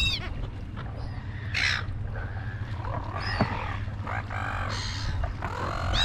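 Silver gulls calling in a flock, several harsh squawks one after another.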